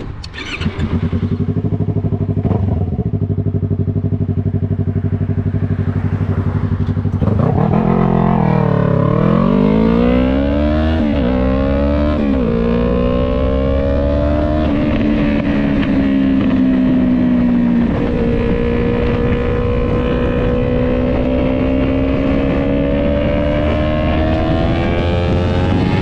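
Yamaha R3's parallel-twin engine running through a full stainless Jeskap aftermarket exhaust. It runs at a steady pitch for about seven seconds. Then the revs dip and climb, break twice in quick succession, hold steady, dip once more and climb slowly.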